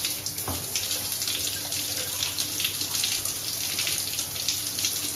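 Water running and spraying steadily from a shower fed by a newly fitted Grohe thermostatic mixer valve, turned on to test the temperature control.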